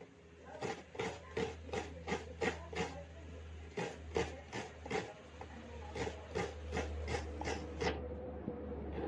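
Coconut flesh being scraped by hand from a half shell on a grater: rhythmic rasping strokes, about three a second, with a short break about a third of the way in, over a low steady hum.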